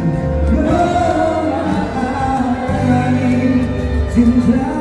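Music with singing: long held sung notes over a steady accompaniment.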